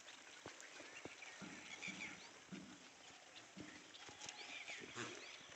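Faint scattered clicks and knocks of goats moving about, hooves tapping and shuffling on the ground.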